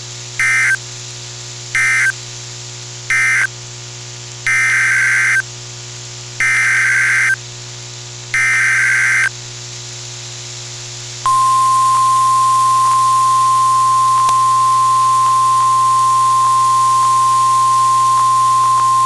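NOAA Weather Radio emergency alert coding over a low radio hum. First come three short buzzing bursts of end-of-message code closing the previous warning, then three longer SAME data bursts of a new alert header. About 11 seconds in, the steady 1050 Hz warning alarm tone starts and is still sounding at the end.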